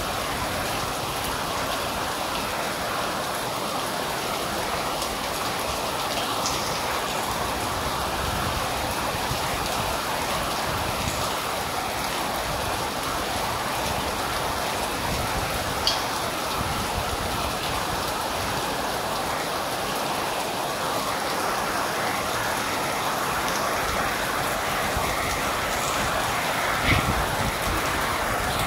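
Steady rain falling, an even dense hiss with a few sharper drip ticks scattered through it.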